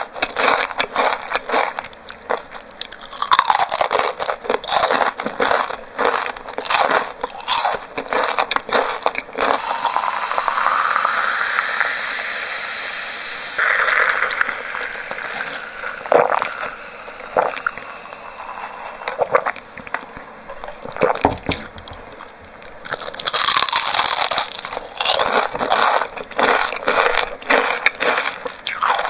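Close-miked crunching of crispy fried chicken batter, bitten and chewed with dense crackles. Partway through, the crunching stops for a drink sipped through a straw, with a rising hiss. Loud crunching starts again near the end.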